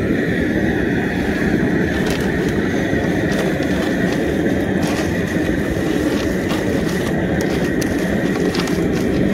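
A loud, steady rushing roar with an even pitch held high in it, and light clicks scattered through it as boiled crawfish are tossed and scraped with plastic scoops in a cooler.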